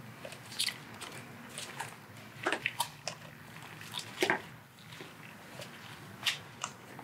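Handling noise from wiring being worked by gloved hands: a scatter of short crinkles and clicks from wires, plastic connectors and rubber rubbing together, with the sharpest ones about half a second in, two and a half seconds in, just past four seconds and just past six seconds.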